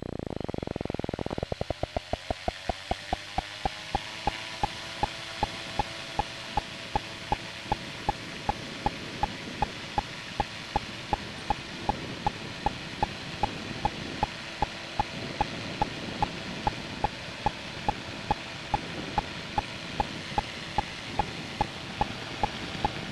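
Microlight trike engine opening up about a second and a half in, its pitch rising and then holding at full power through the takeoff roll and climb-out. A sharp, regular tick repeats about two to three times a second over the engine and rushing air.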